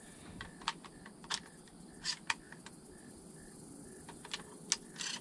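Shotgun being reloaded: a series of sharp, irregular metallic clicks as shells are handled and pushed into the gun. Crickets chirp faintly and steadily underneath.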